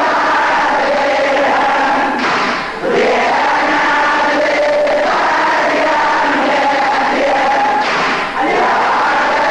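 Voices chanting a Shia lament (latmiya) refrain in long held tones, with two short breaks in the line, about two and a half and eight seconds in.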